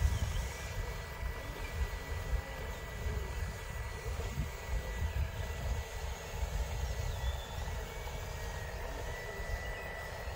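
Wind buffeting the microphone in an uneven low rumble, with a thin steady high whine and fainter wavering whines from the small electric motors of radio-controlled construction models: an excavator loading a dump truck.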